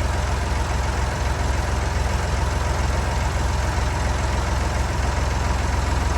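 Old Massey Ferguson farm tractor's engine running steadily.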